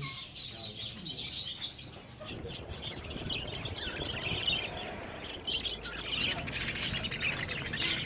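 Many caged small birds, budgerigars among them, chirping and twittering over one another in a dense, continuous chorus. A low even background noise sits beneath it from about two seconds in.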